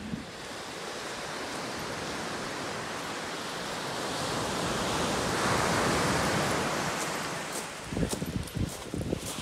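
Ocean surf washing onto a beach as a steady rush that swells as a wave breaks about halfway through. Near the end, irregular low buffeting of wind on the microphone comes in.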